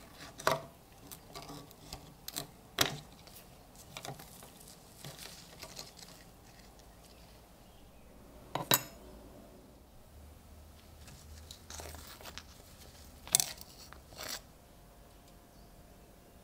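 Scattered metallic clinks and taps from handling small metal tools and knife parts, about half a dozen sharp ones among quieter knocks.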